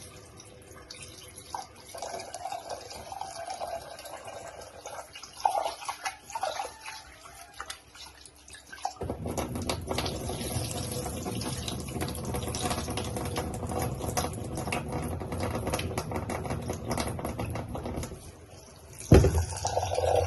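Kitchen tap running into a sink, with scattered clinks of utensils before the water comes on about halfway through. A loud knock near the end.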